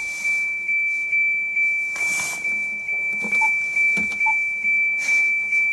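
A steady, high-pitched electronic beeper tone that pulses rapidly, with two short, lower electronic beeps about three and a half and four and a quarter seconds in.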